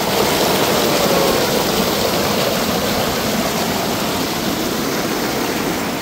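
Waterfall stream water rushing: a loud, steady, even rush.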